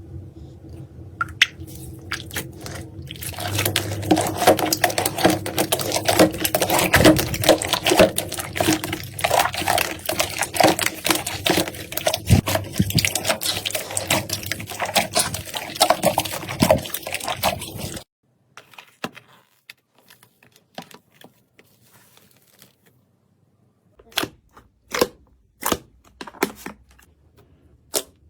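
Slime being squished and pressed by hand, giving dense wet crackling and popping. It cuts off suddenly about two-thirds of the way in, and is followed by a few faint clicks and then a row of separate sharp clicks, about one every second or less, near the end.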